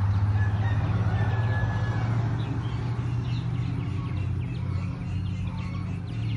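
Chickens clucking faintly over a steady low hum.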